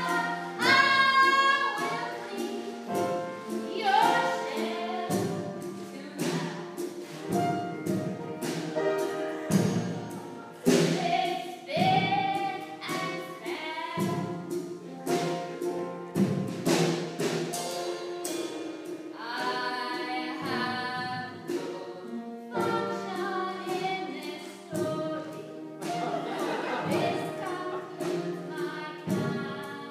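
A woman singing a song over musical accompaniment, with sharp percussive strikes throughout.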